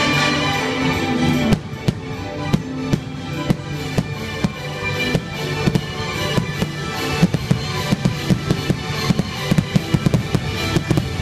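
Aerial firework shells bursting in quick succession, a rapid run of sharp bangs and crackles. This begins about a second and a half in, when the show music drops back.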